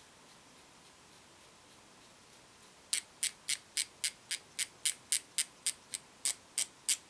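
Star drag of a Johnny Morris Signature Series baitcasting reel being turned down, clicking: a run of about sixteen sharp clicks at roughly four a second, starting about three seconds in.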